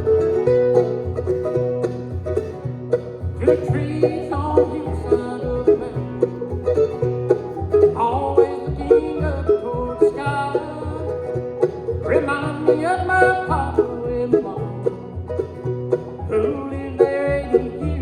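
Bluegrass band music: banjo rolls over guitar accompaniment, with melodic lead phrases coming in every few seconds.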